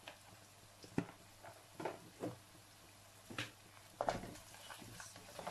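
Sliced onions and whole spices frying quietly in oil in a pan, with a few scattered sharp clicks, then a spatula knocking against the pan and stirring from about four seconds in.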